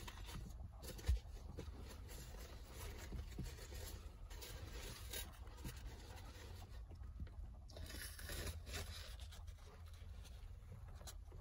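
Faint scraping and rustling over a steady low rumble, with one soft thump about a second in.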